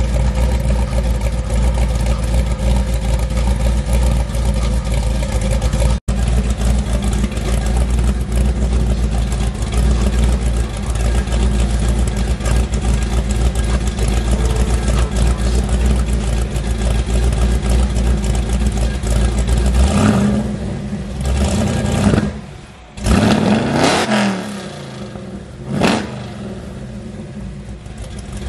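Supercharged LS V8 of a donk convertible idling steadily, then revved several times in quick blips over the last eight seconds or so, the pitch rising and falling with each.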